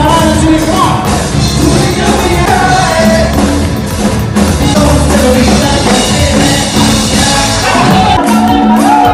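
Loud music with singing over a heavy bass.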